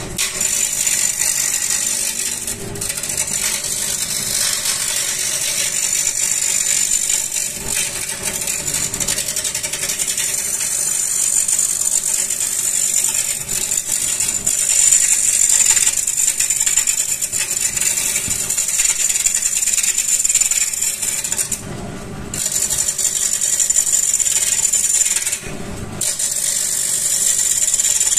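Wood lathe spinning a long laminated timber blank while a hand-held turning tool cuts into it, a steady rushing hiss of wood being cut with shavings spraying off. The cut breaks off briefly twice in the last third as the tool comes off the wood.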